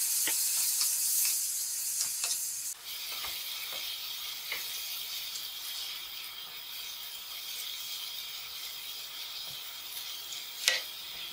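Chicken pieces sizzling in a frying pan on a gas burner while a wooden spoon stirs them, with scattered light scrapes and knocks of the spoon against the pan. The sizzle drops suddenly about three seconds in, and there is a sharper knock of the spoon near the end.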